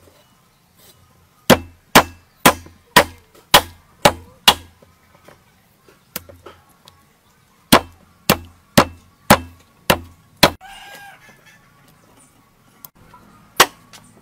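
Steel cleaver chopping through raw chicken breast onto a wooden chopping board: a run of seven strikes about two a second, a lone strike, then six more at the same pace, and one last chop near the end.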